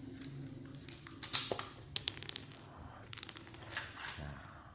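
Plastic parts of a spring airsoft pistol clicking and knocking together as it is handled and reassembled by hand: one sharp click about a second in, then several quick light clicks and a cluster of small clatters near the end.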